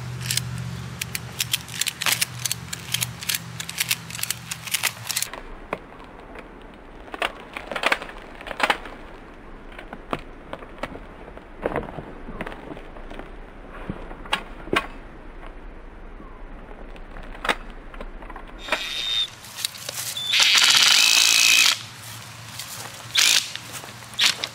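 Hands-on assembly of a portable garage's metal frame and cover: a string of irregular clicks and knocks, with a louder noisy stretch of about a second and a half near the end.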